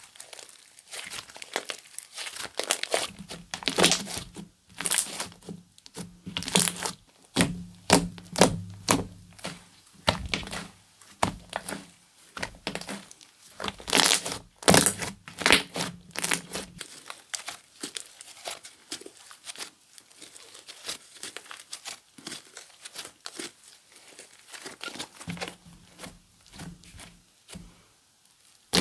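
Comelly 'Marshmelly' slime being squeezed and stretched by hand, crackling and popping in irregular small clicks. Clusters of louder pops come in the first half; the crackling is softer later on.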